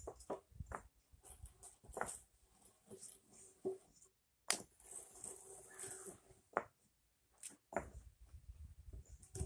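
Irregular sharp knocks and clicks, roughly one a second: a hammer striking concrete pavers and pavers knocking together as they are trimmed and set in place.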